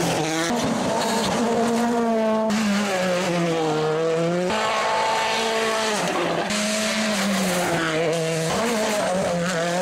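Turbocharged World Rally Car engines revving hard, the pitch dropping and climbing as the cars brake and accelerate through corners. The sound jumps to a different car about every two seconds.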